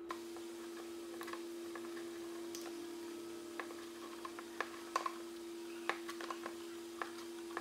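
Small irregular clicks and ticks of hands handling electrical wiring and fittings on a metal rack, over a steady hum.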